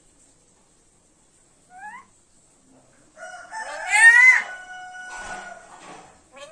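Pet parrot calling: a short rising chirp about two seconds in, then a loud call of rising whistled notes about a second later that peaks and trails off.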